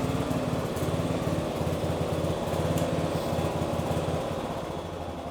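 John Deere S92 riding lawn mower's engine running under light load as the mower creeps slowly up a ramp, a steady throb that eases off slightly near the end.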